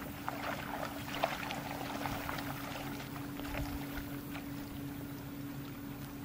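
Light, irregular splashing of shallow water as dogs wade and a push pole works beside a small wooden dory, over a steady low hum.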